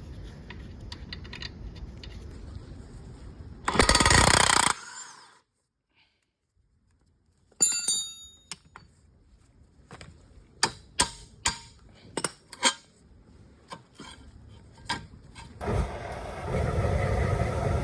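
Sounds of taking apart a car's rear suspension and differential: a power tool runs in a loud burst of about a second, then come metallic clanks that ring briefly and a run of sharp clicks and knocks from metal parts and tools. Near the end a steady rushing noise starts.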